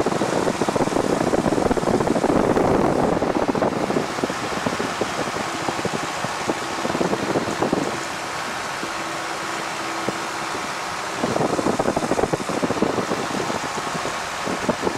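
Cockpit noise of a 1940 Piper J-3 Cub in flight: its Continental A-65 four-cylinder air-cooled engine running steadily under loud rushing airflow and wind buffeting the microphone. About eight seconds in the buffeting eases for a few seconds, leaving a steadier drone, then comes back abruptly.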